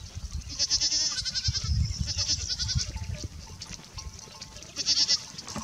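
Goats bleating: a long, wavering, trembling bleat about a second in and a shorter one near the end.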